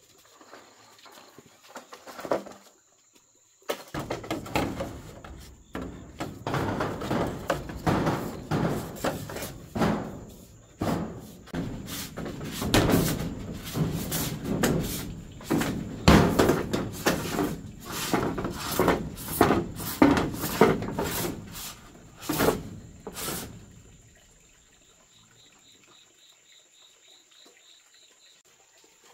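A long run of irregular knocks and thuds, dense for about twenty seconds and then stopping; a faint high chirp repeats evenly near the end.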